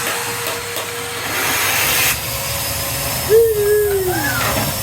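Numatic Henry cylinder vacuum cleaner running with a steady hiss of suction. About three seconds in, a short high voice-like cry glides down over it.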